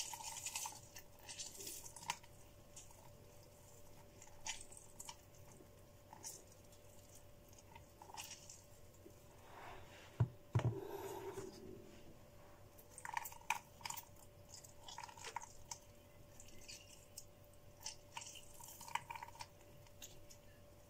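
Lemon being squeezed by hand over a plastic jug of juice: scattered faint wet squelches and drips, with one louder thump about ten seconds in.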